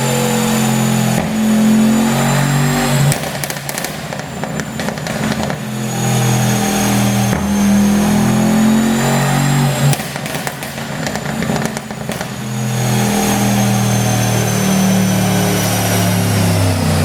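Mercedes-AMG E63's twin-turbo V8 revved up and held three times, with sharp pops and crackles from the exhaust each time the revs fall: the sound of a pop-and-crackle tune.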